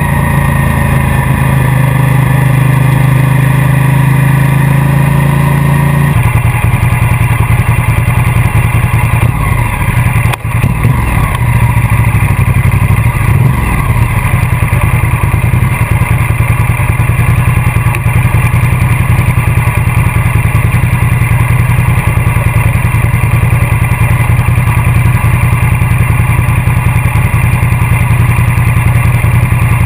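Ducati motorcycle engine running, heard close up from the bike. About six seconds in its note changes and settles into a steady, even low beat at low revs, with a brief dip a few seconds later.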